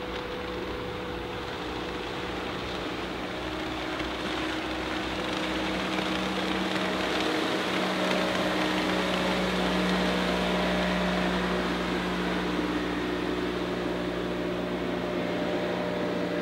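Evinrude E-Tech 75 hp direct-injection two-stroke outboard driving a small fishing boat at speed. A steady engine drone with water rush, growing louder as the boat passes close about halfway through, then easing slightly.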